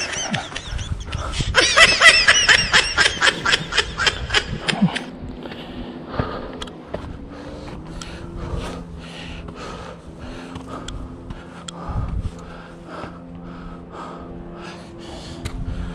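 A man laughing in short, breathless bursts, about four a second, for a few seconds. Then comes quieter, regular panting from the exertion of a steep climb.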